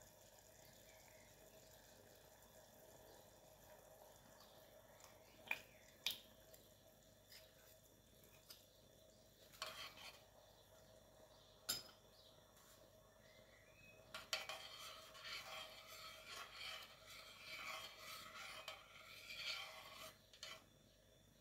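Metal spoon clinking sharply against a stainless steel saucepan a few times, then several seconds of stirring and light scraping in the boiling sugar syrup. The sound is quiet.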